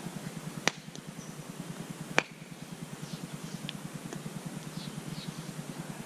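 Campfire crackling, with two sharp pops about two-thirds of a second and two seconds in, and faint bird chirps. A steady low pulsing hum runs underneath.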